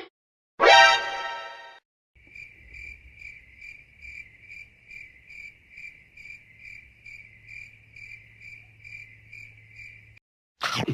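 Cricket chirping sound effect: evenly spaced chirps, about two a second, for several seconds. It follows a brief pitched sound that fades out about a second in, and a short loud sound comes near the end.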